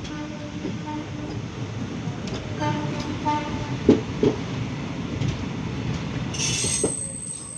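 Passenger train running, with a steady rumble of coach wheels on the track heard at the open door. A horn sounds twice in short blasts, once at the start and again about two and a half seconds later. Two sharp clacks come from the wheels about four seconds in.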